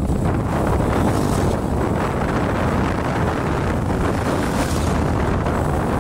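Wind buffeting the microphone on a bicycle during a fast downhill ride at about 40 km/h: a steady, loud rush of wind noise, heaviest in the low end.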